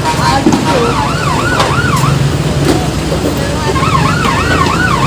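Electronic siren yelping in two short bursts, its pitch wavering up and down about four times a second. Between the bursts there are a few sharp knocks of wooden boards and debris being handled.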